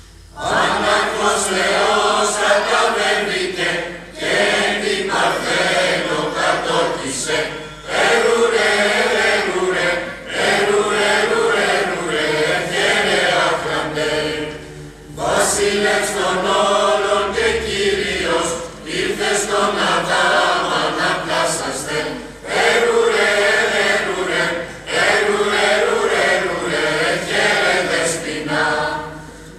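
Mixed choir of men, women and children singing, starting about half a second in, in phrases broken by short pauses every few seconds.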